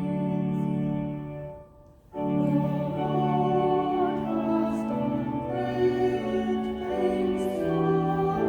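Slow church music of long held notes, stopping for a moment about two seconds in and then going on.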